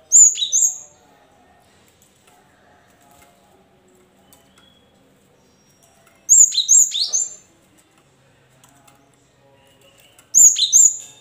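Cinereous tit (gelatik batu) calling: three short bursts of two or three sharp, high notes that each drop quickly in pitch, near the start, about six seconds in and near the end.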